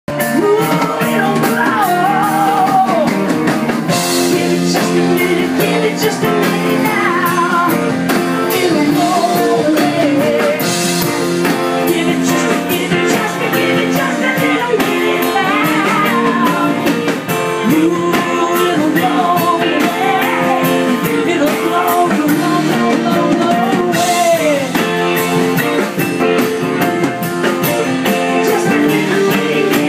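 Live band playing a song: a singer over electric guitar, keyboards and drums, with a steady beat.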